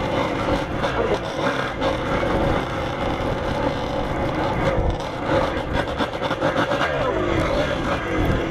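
Kawasaki KDX two-stroke dirt bike engine running while being ridden through deep snow, its pitch shifting a little with the throttle.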